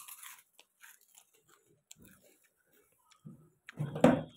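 Close-up chewing and crunching, like someone biting on a hard sweet, in short irregular crunches. A louder bump and rustle comes about four seconds in.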